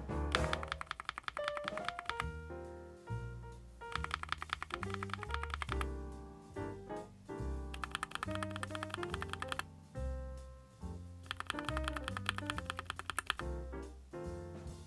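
Fast typing on a NuPhy Air96 low-profile mechanical keyboard, with rapid key clicks coming in runs of about two seconds and short pauses between them. The typing is heard over background music.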